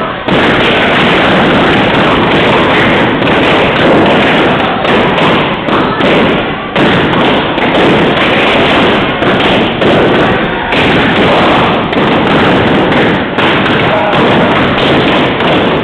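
Dozens of latex party balloons popping in a rapid, overlapping crackle as a crowd breaks them, with people shouting and cheering among the pops.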